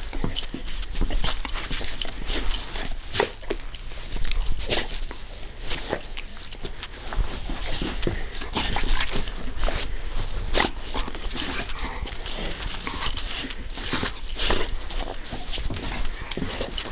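An American Pit Bull Terrier close to the microphone, making many irregular short, noisy sounds.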